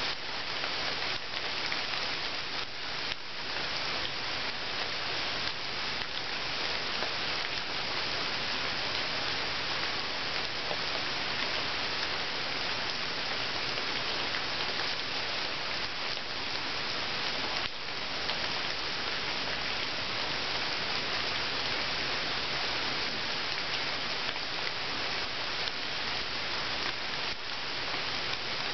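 Steady rain falling into a pool of water, many drops merging into an even hiss.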